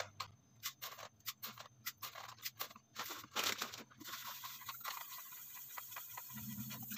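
A metal spoon scooping coarse rock salt out of a crinkling plastic bag, with quick irregular scrapes and rustles. About four seconds in it gives way to lighter scraping of the spoon in a plastic bowl.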